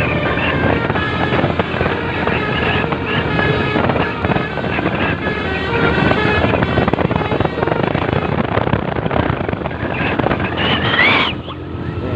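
Tour bus's multi-tone telolet basuri horn sounding a run of steady musical notes over the rumble of the bus and wind on the microphone. Near the end a rising tone cuts off suddenly.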